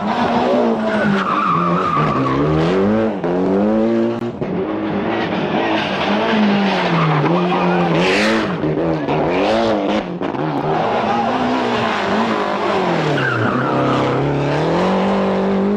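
Group A rally cars' turbocharged four-cylinder engines revving hard, the pitch climbing and dropping again and again through gear changes and lifts, with tyre noise as the cars are driven on the limit on tarmac.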